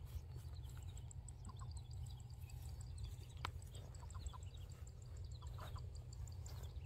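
Faint outdoor ambience: many small high-pitched chirps over a steady low rumble, with one sharp click about three and a half seconds in.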